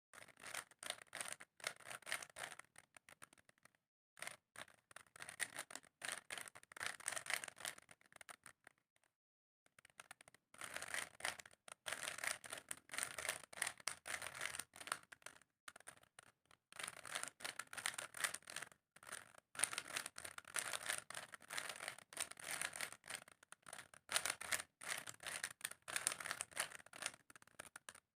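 A plastic Rubik's cube being turned quickly by hand: rapid clicking and scraping of its layers, in spells of a few seconds with short pauses between them, as the last layer is solved.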